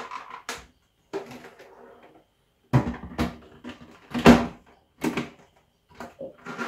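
Plastic knocks, clunks and scraping as the filled blender jar is set and fitted onto a Ninja Auto-iQ blender base. There is a run of separate knocks with a louder clunk about four seconds in.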